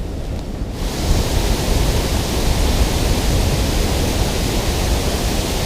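Steady rushing of water pouring through a dam spillway, with a heavy low rumble and a hiss that fills in about a second in.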